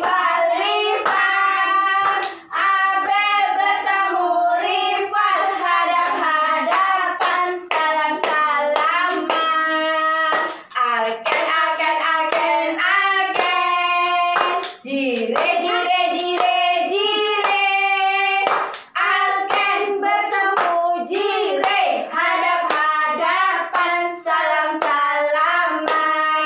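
A woman and young children singing a children's action song together, with frequent hand claps.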